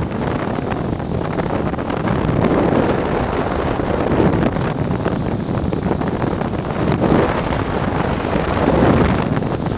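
Wind rushing over the microphone of a camera mounted on a hang glider in flight: a deep, steady rush that swells and eases a little with the airflow.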